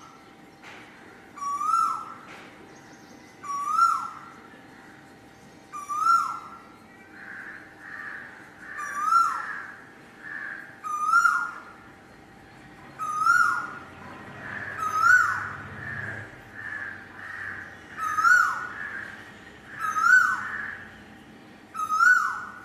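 Koel calling one short rising-then-falling note over and over, about once every two seconds. Through the middle part a softer run of higher calls fills the gaps between them, and a faint steady hum runs underneath.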